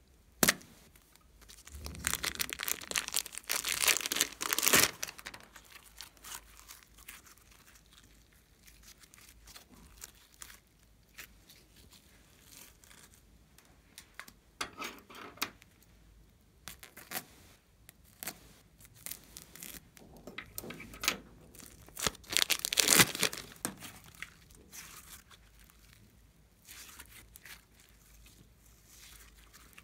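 Slime being squeezed out of plastic piping bags and stretched by hand: crinkling plastic and sticky slime sounds in irregular bursts. The bursts are loudest a couple of seconds in and again about three quarters of the way through, with quieter handling between.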